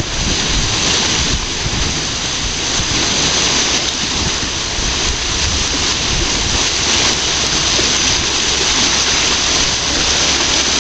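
Large whirlpool over a lock's underwater filling intake, water rushing and churning steadily into the vortex as the lock chamber fills. Wind rumbles on the microphone.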